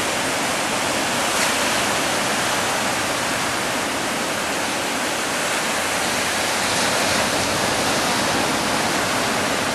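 Sea surf breaking and washing up the shore, heard as a steady rush of water without distinct wave crashes.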